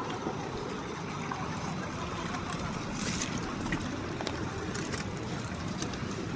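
1/10-scale RC rock crawler (Axial SCX10 II with a brushed 550 motor) crawling slowly over rock and gravel: a steady low drivetrain hum with scattered clicks and crunches from the tyres on stones.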